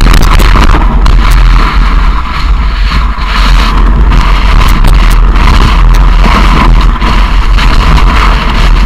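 Heavy wind buffeting on an action camera's microphone as it moves fast over snow: a loud, constant rumble with a rushing hiss over it.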